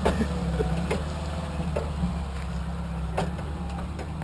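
A vehicle engine running steadily at low revs, with a couple of light knocks.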